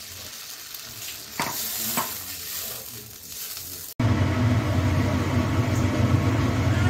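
Vegetables cooking in water in a pan, quiet at first with two light clinks. After an abrupt cut about four seconds in, the water bubbles loudly at a boil while a wooden spatula stirs it.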